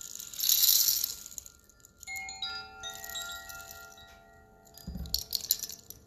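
Hanging bamboo-tube chimes being played: a rattling burst just after the start, then several clear ringing notes from about two seconds in that hold and slowly fade, and another rattling clatter with a low bump about five seconds in.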